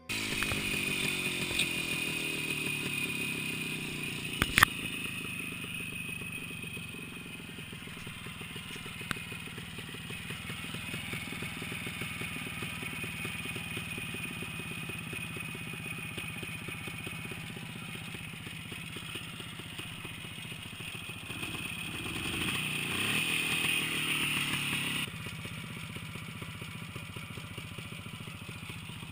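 A small motorcycle-type engine running, its revs falling in the first seconds and climbing again around twenty seconds in, with a sharp bang about four and a half seconds in; the engine sound drops suddenly quieter near the end.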